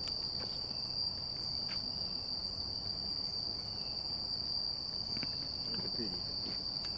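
Night insect chorus of crickets calling in one steady, high-pitched, unbroken drone.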